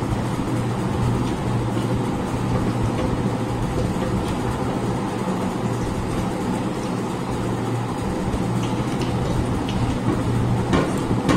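Steady low mechanical hum, with a brief sharp click near the end.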